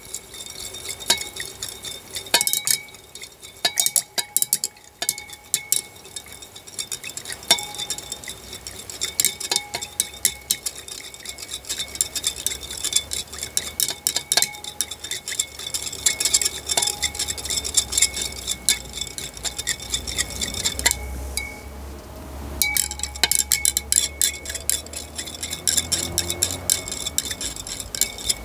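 A stirring rod clinking and scraping against the inside of a beaker in rapid, uneven ticks as a cloudy solution of urea and nitric acid is stirred, with a brief pause about three-quarters of the way through.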